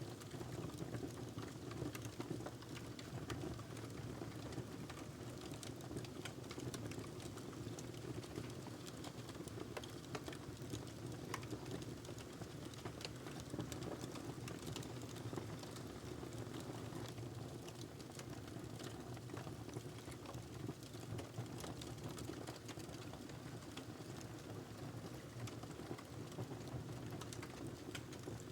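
Wood fire burning in a fireplace, with a steady low rumble of the flames and many small, irregular crackles and pops.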